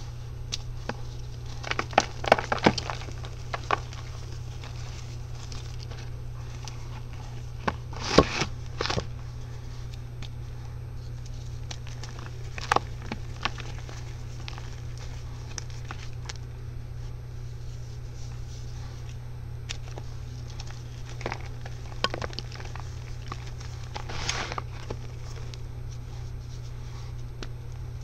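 Hands crushing and breaking crumbly pressed-powder balls in a tray of loose powder: soft crunching and crumbling with scattered sharp crackles, bunched in short clusters about 2, 8, 13, 22 and 24 seconds in. A steady low hum sits beneath.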